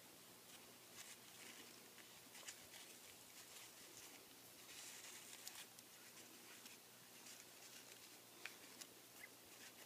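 Near silence, with faint scattered rustles and light ticks from fingers handling a grosgrain ribbon bow and its metal alligator clip.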